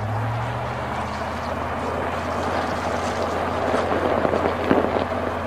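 Tractor engine sound effect running under load as it tows a stuck vehicle out with a cable: a steady low drone under a rushing noise that swells a little toward the middle.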